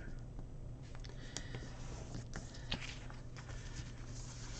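Faint paper handling: light rustles and a few small clicks and taps as stickers are peeled off a sheet and pressed onto a planner page, over a low steady hum.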